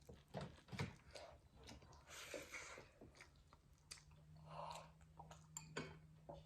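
Faint chewing sounds of people eating a meal, with scattered small clicks and a couple of brief noisy mouthfuls.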